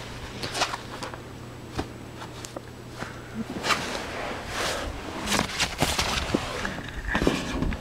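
Rustling and soft bumps from handling a hotel bed, its bedding and mattress pressed and moved, with a low steady hum that stops about three seconds in.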